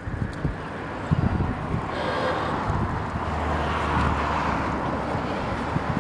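Volks Railway electric car approaching along the track: wheel-on-rail noise and a low steady hum, growing louder from about two seconds in, with wind buffeting the microphone at first.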